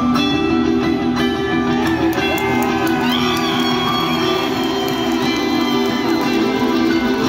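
Live band music played loud, led by a guitar, as heard from the crowd at a concert.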